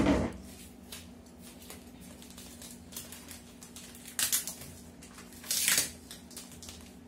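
A clear plastic envelope taped to the top of a cardboard shipping box being peeled off by hand: two short tearing rasps about four and five and a half seconds in, with light rustling and clicks between. A short thump right at the start.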